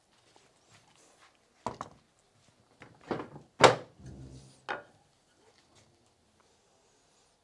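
A few hollow wooden knocks and thuds as wooden frame strips are handled and set against a wooden base board. There are four or so separate knocks, the loudest a little past halfway.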